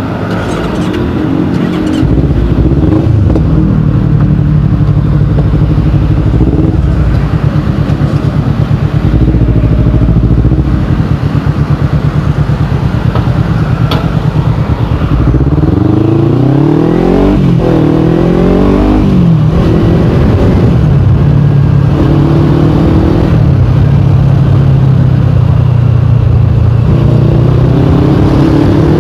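Kawasaki Ninja 250 Fi's parallel-twin engine through a KP16 aftermarket exhaust, running loudly and steadily. Its pitch rises and falls several times about halfway through as it is revved, with a few shorter rises later on.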